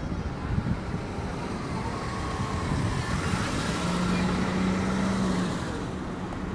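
A road vehicle passing close by: a rushing sound swells over a couple of seconds and fades again, with a steady low engine hum near its loudest, about four to five seconds in.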